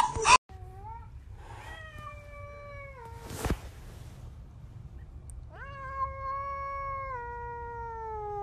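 Domestic cat yowling in long, drawn-out calls, facing off with another cat through a window: a short call about a second in, one held for nearly two seconds and sinking slightly, then another of about four seconds near the end that dips and rises again. A brief loud noise right at the start and a sharp click between the calls.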